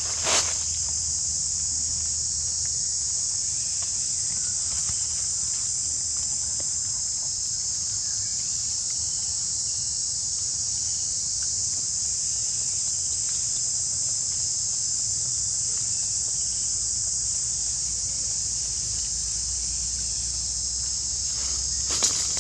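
Steady, high-pitched drone of a forest insect chorus, with a few short clicks just after the start and again near the end.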